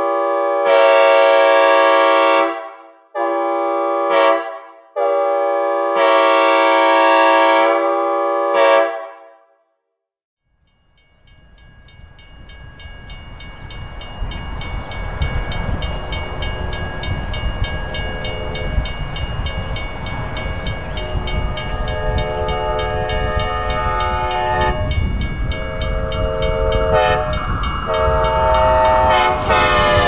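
Synthesized recreation of Amtrak F40PH No. 213's multi-chime train horn, a non-standard SL4T-type with bells 31, 37, 55 and 44, played with reverb as a series of long and short chord blasts for about nine seconds. After a second of silence, a train's rumble builds up and the horn sounds again and again as it approaches, its chord dropping in pitch near the end as it passes (Doppler effect).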